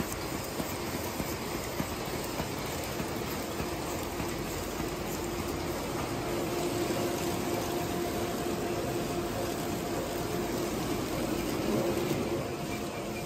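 Automatic wooden-cutlery and napkin packaging machine running: a steady mechanical whir and hum of its conveyors and wrapping mechanism. There are light regular ticks in the first few seconds, and a faint steady tone comes in about halfway through as it gets slightly louder.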